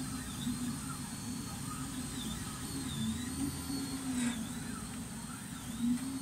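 FDM 3D printer printing: the print head's stepper motors whine in tones that glide up and down as the head speeds up, slows and changes direction, over a steady hiss from the cooling fans.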